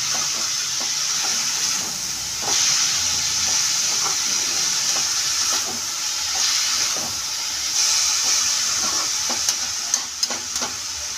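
Shredded potatoes sizzling in ghee in a metal kadhai while a metal spatula stirs them, the hiss swelling and easing as the shreds are turned, with light clicks and scrapes of the spatula against the pan.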